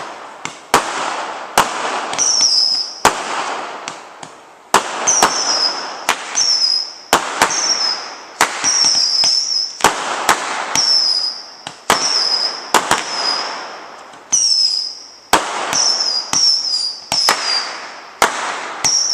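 Aerial fireworks launching shot after shot, roughly one a second. Each shot is a sharp pop followed by a fading hiss and a short high whistle that drops a little in pitch.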